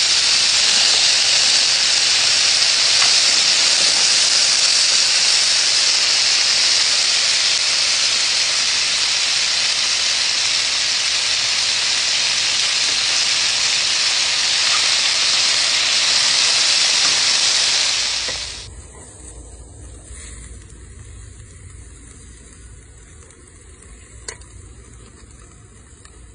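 Beef and vegetables sizzling loudly in a hot frying pan as they are stirred, a steady hiss. About two-thirds of the way through, the sizzle cuts off abruptly, leaving a much quieter low rumble with a faint click or two.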